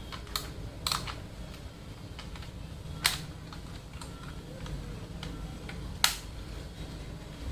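Sharp plastic clicks from a wireless keyboard being handled: a few scattered clicks, the loudest about three and six seconds in, over a low steady hum.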